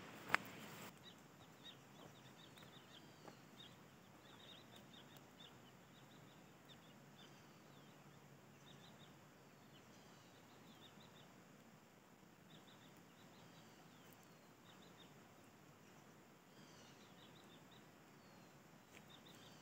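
Faint birds chirping: many short high calls scattered over a quiet hiss of forest ambience. A single sharp click sounds just after the start.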